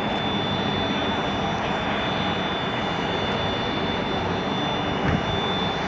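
Jet aircraft turbine running steadily: a constant roar with a thin, high whine held on one pitch.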